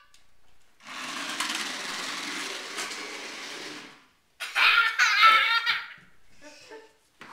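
Toy radio-controlled car's small electric motor whirring steadily as it drives on a hardwood floor for about three seconds, then stopping. Right after, a young child gives a loud, high-pitched excited cry.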